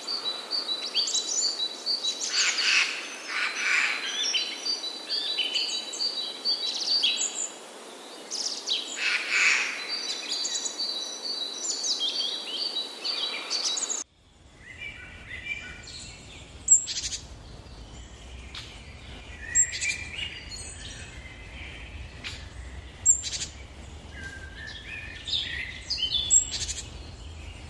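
Several birds calling and chirping, with busy, rapid trills in the first half. After a sudden cut about halfway through, the calls are sparser over a low rumble.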